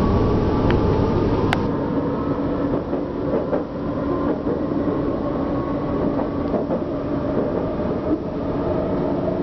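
Steady mechanical rumble with a low hum and a couple of faint held tones, with one sharp click about one and a half seconds in.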